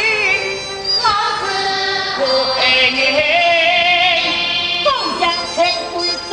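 Teochew opera music: a high melodic line that wavers in pitch, over the accompanying ensemble.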